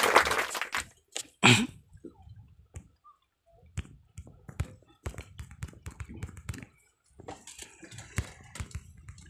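Scattered quiet clicks, knocks and wet splashes from handling a freshly landed barracuda in a small boat, with water lapping at the hull. One louder knock comes about one and a half seconds in.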